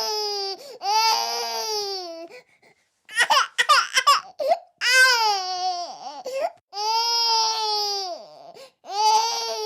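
Baby crying in a series of long, falling wails, each about a second and a half, broken around the middle by a run of short, choppy sobbing cries.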